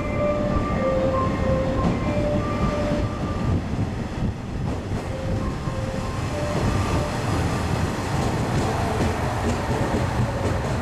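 A train rolling slowly through the station, a continuous heavy rumble. In the first few seconds, high steady squealing tones come and go, from the wheels on the rails.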